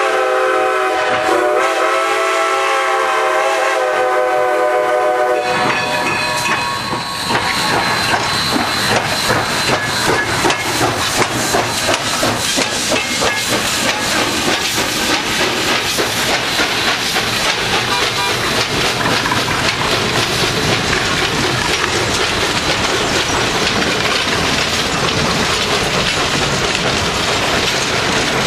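Baldwin 2-8-0 steam locomotive sounding its whistle, a steady chord of several tones lasting about five seconds, then passing close by with a fast, even beat of exhaust and wheels. Its passenger coaches follow, rolling by with clickety-clack over the rail joints.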